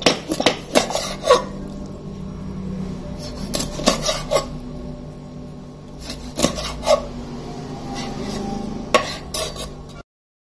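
Knife cutting skinned baam (Indian eel) into chunks on a plastic cutting board: sharp knocks of the blade striking the board come in small clusters, with rubbing and sawing of the knife through the flesh between them. The sound stops abruptly near the end.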